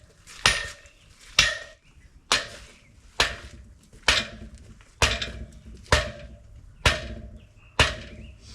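Hammer blows on metal fencing, nine even strikes a little under a second apart, each with a short metallic ring.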